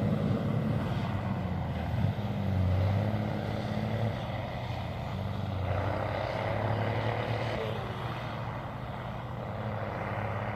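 Tractor engine running steadily, its pitch shifting a little about two seconds in and again near six seconds.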